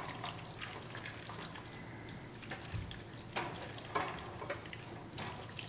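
Metal tongs stirring spaghetti, chicken and sauce in a simmering frying pan: a faint sizzle under scattered light clicks and scrapes of the tongs against the pan.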